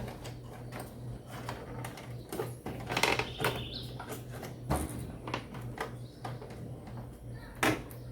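Clicks and knocks of plastic and metal as a small desktop PC's front bezel is handled and fitted back onto the case, with a louder clatter about three seconds in and sharp knocks near five seconds and near the end.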